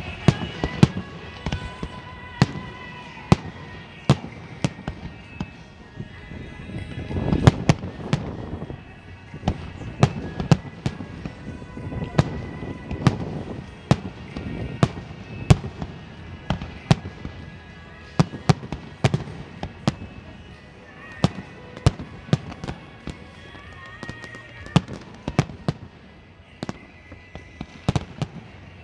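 Fireworks display going off in an irregular string of sharp bangs, sometimes several a second, with a denser, louder flurry about seven seconds in.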